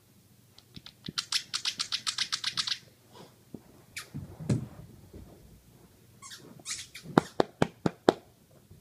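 Sounds of a game of fetch with a tennis ball: a quick run of about a dozen sharp squeaky clicks, a dull thump about four and a half seconds in as the ball bounces and the puppy pounces, then a few sharp clicks near the end.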